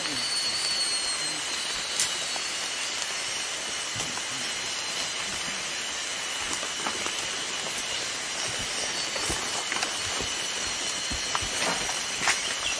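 Steady hiss with faint, even high-pitched tones running through it, and a few light clicks and rustles near the end.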